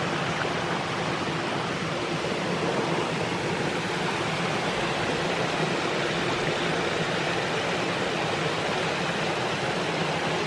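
Steady rush of water falling over a small waterfall on a woodland creek.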